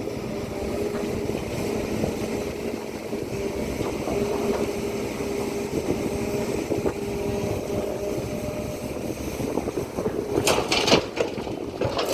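Hydraulic excavator's diesel engine running steadily with a constant hum, and a few sharp metallic knocks about ten seconds in.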